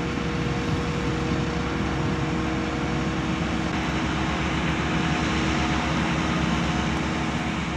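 Airbus A350-900's Rolls-Royce Trent XWB jet engines running steadily at low power, a constant whooshing rush with a faint steady hum in it.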